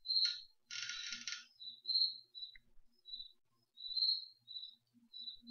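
A bird chirping: short, high calls at irregular intervals, with a scratchier call about a second in.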